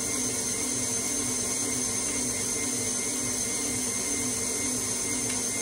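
KitchenAid tilt-head stand mixer running steadily at medium speed with a constant whir, whisking coffee cream cheese icing until it thickens.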